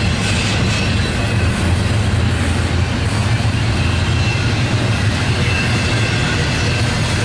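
Double-stack intermodal container well cars rolling past, a steady loud rumble of steel wheels on rail, with faint high wheel squeals now and then.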